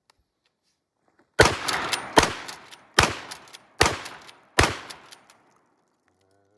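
Five gunshots in quick succession, about one every 0.8 seconds, each followed by a short echo.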